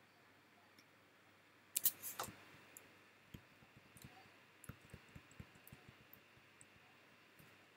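Faint clicking from working a computer's controls: a quick cluster of louder clicks about two seconds in, then a scattered run of lighter clicks and taps.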